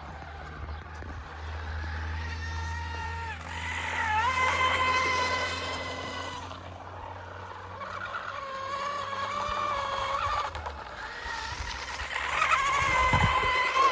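Radio-controlled hydroplane boat's motor whining at speed, its pitch rising and falling as the boat accelerates and turns. It grows louder about four seconds in and again near the end as the boat passes closer.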